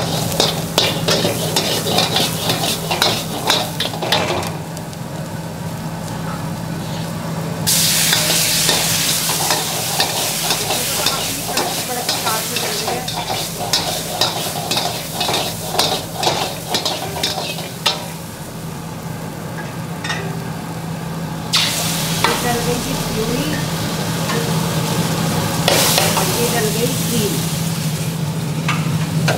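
A steel ladle stirs and scrapes around a wok of frying spices over a high gas flame, clicking quickly against the metal. The sizzle swells loud about eight seconds in, eases off near eighteen seconds, and swells again about twenty-two seconds in. A steady low hum runs underneath.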